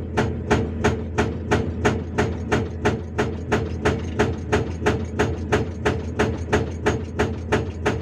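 Hydraulic breaker on a Hyundai R480LC-9S excavator hammering a rock boulder, its chisel striking in steady rapid blows of about three a second over the low, steady run of the excavator's engine.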